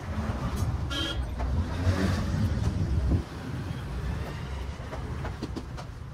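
Vehicle noise from the road, a low rumble that drops away about three seconds in, with a short horn toot about a second in.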